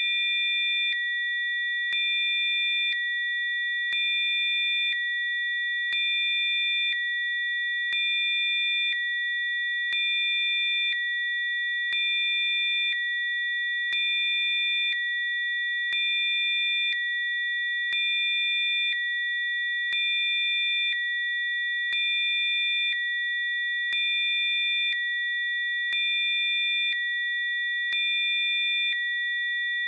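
Electronically generated Rife-frequency tones: several steady high pure tones held together, while a lower tone and a few fainter ones switch on and off every second, with a faint click at each switch.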